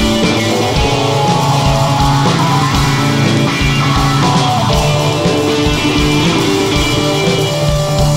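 Instrumental indie rock: electric guitar lines played over bass and a steady drum beat, with no singing.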